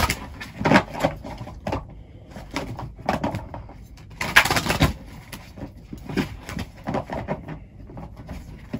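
A deck of tarot cards being shuffled and handled by hand: a run of irregular short swishes and rustles, with one longer swish about four seconds in.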